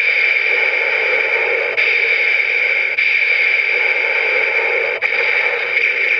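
Playback from the CSM Den-O Belt's small built-in speaker: a steady, hissy, distorted sound clip with a thin, tinny tone, briefly dipping a few times.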